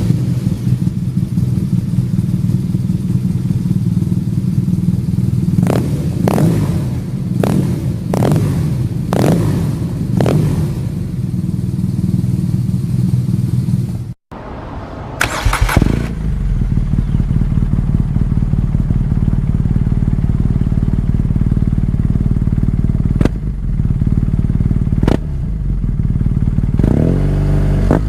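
Sport motorcycle engine idling, with a string of short throttle blips. About fourteen seconds in, a cut leads to a second recording of an engine idling, with a quick rev just after the cut and a rising rev near the end.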